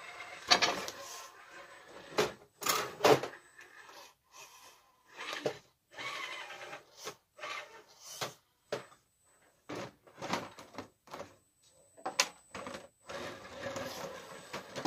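An Element RC Trailrunner 1/10-scale crawler crawling over wood and stone obstacles: irregular knocks and scrapes of its tyres and chassis on the boards and stones, with short bursts of motor and gear noise between them.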